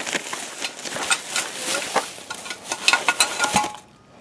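Plastic packaging and a paper bag rustling and crinkling as electrical parts are handled, with scattered small clicks and taps. It stops about half a second before the end.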